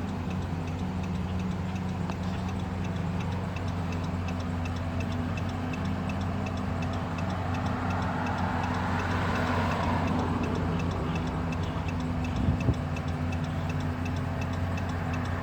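A car engine idling with a steady low hum under a fast, even ticking. A passing vehicle swells and fades about eight to ten seconds in, and two short knocks come near the end.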